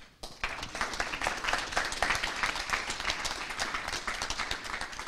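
Audience applauding, a dense patter of many hands clapping that starts just after the sound opens and thins out near the end.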